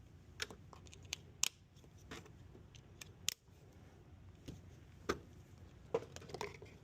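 A scattered series of light clicks and taps, about eight to ten spaced unevenly, over a low steady background hum.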